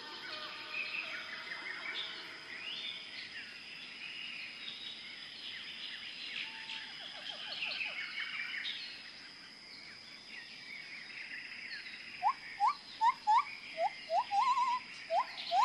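Birds chirping and twittering in a busy chorus for the first several seconds. Then, from about three-quarters of the way in, a run of loud, short, rising whistled calls repeats several times a second. A faint steady high tone runs underneath.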